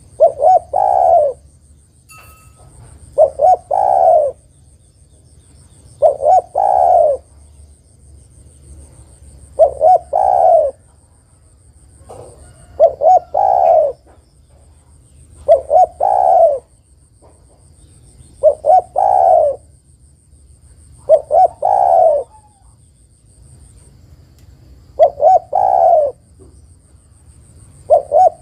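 Spotted dove cooing in a repeated phrase, about once every three seconds: two quick notes, then a longer coo. The call is offered as a female's call to draw male doves into song.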